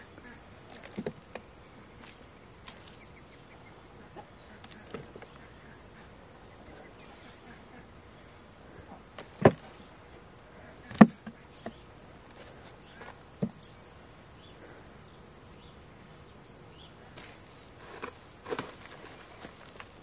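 Potatoes dropped into a plastic bucket: a handful of short knocks, two loud ones about halfway through. Under them runs a steady high-pitched insect drone that stops for a moment between the two loud knocks.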